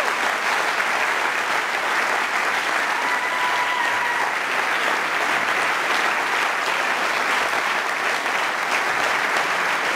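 Large concert audience applauding steadily and densely at the end of a wind band's final piece, with a brief high steady tone about three seconds in.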